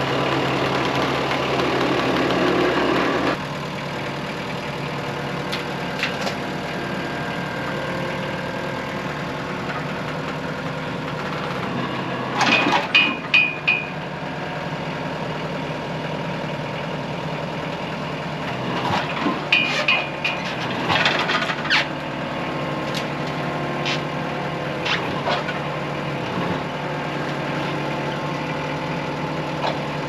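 Scat Trak skid steer engine running harder for about three seconds, then dropping suddenly to a steady idle. Scattered knocks and clanks come about twelve seconds in and again around twenty seconds in, as the heavy log is handled onto the sawmill bed.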